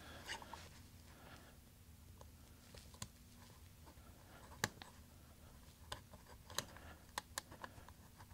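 Faint, irregular metallic clicks of a steel tool working at the back of a Schlage pin-tumbler lock cylinder as it is taken apart: a handful of sharp ticks, the loudest about halfway through.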